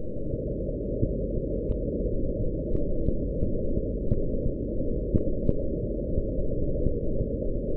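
Radio emission from a quasar converted to audio: a steady, low rushing static, cut off above a low pitch, with a few faint scattered clicks.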